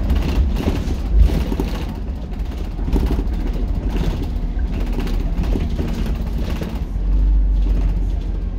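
Transbus Dart SLF single-deck bus heard from inside the rear saloon: its engine running under a steady low rumble, with interior rattles, and the rumble growing heavier about seven seconds in.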